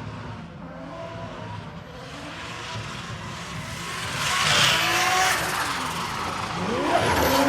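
Turbocharged Nissan Skyline R32 drifting: the engine runs under throttle while the tyres skid and squeal, loudest about halfway through, and the revs climb near the end.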